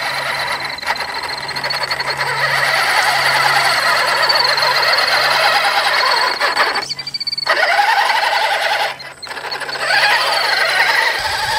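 RC 6x6 mud truck's motor and gears whining as it drives down into a shallow muddy puddle, its tyres churning through the water. The whine wavers in pitch and drops out briefly twice, about seven and nine seconds in.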